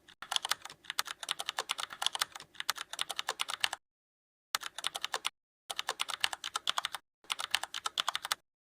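Rapid keyboard typing clicks in four bursts, each cut off abruptly into silence, typical of a typing sound effect laid under on-screen text.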